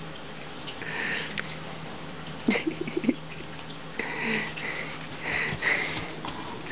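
A dog sniffing and snuffling hard with its nose pushed into a large plush stuffed toy, in several noisy breaths, with a few sharp knocks about two and a half to three seconds in.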